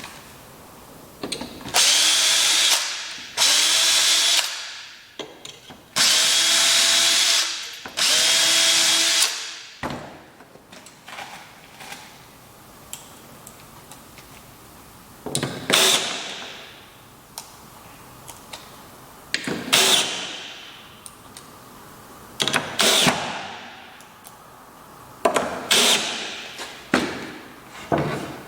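Power drill running in four bursts of one to two seconds each, its motor holding a steady pitch. Later comes a string of shorter, sharper knocks in pairs and singles.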